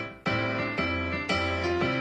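Intro theme music: two sustained chords, struck about a second apart, each fading away.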